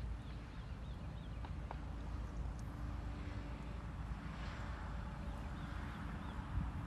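Outdoor ambience on a breezy shoreline: a low rumble of wind on the microphone, with faint high bird chirps in short runs, once in the first second or so and again about five seconds in.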